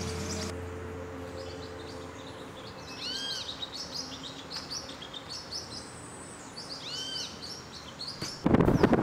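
Birds chirping and calling in tropical woodland, with many short high chirps and one arched whistled note heard twice, about four seconds apart. Near the end, wind buffets the microphone loudly.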